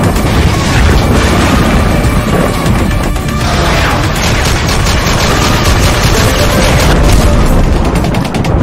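Loud, dense intro music laced with booming hits and sound effects of rapid gunfire, with a run of quick shots near the end.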